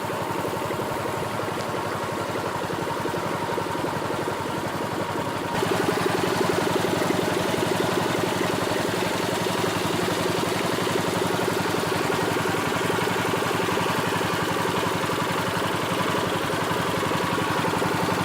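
A small engine running steadily at an even pace, getting a little louder about five and a half seconds in.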